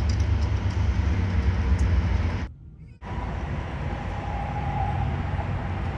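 Airliner cabin noise on final approach: the steady, deep rumble of jet engines and rushing airflow. It breaks off briefly about two and a half seconds in, then carries on a little quieter with a faint steady whine.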